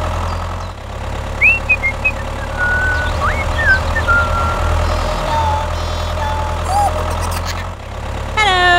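Tractor engine running with a steady low rumble, its note shifting abruptly about a second in and again near the end. A few short high whistles sound over it.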